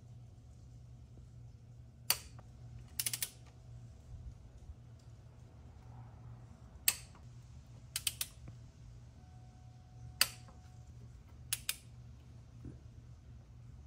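Click-type torque wrench tightening cylinder-head stud nuts, set to 25 ft-lb. Three sharp single clicks a few seconds apart, each followed about a second later by a quick run of two or three lighter ratchet clicks.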